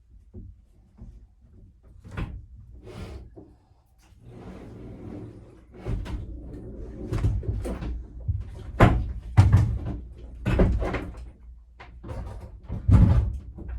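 Irregular knocks, bumps and scrapes of hands-on work inside a sailboat's cabin, sparse at first, then busier and louder about six seconds in, with several heavy thumps toward the end.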